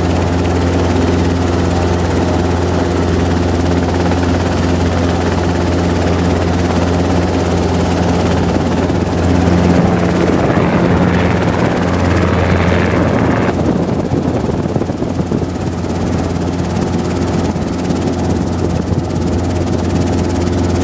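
Robinson R22 helicopter running: a steady, loud drone of piston engine and two-blade rotor. About ten seconds in, a rushing noise builds on top of it and cuts off sharply a few seconds later.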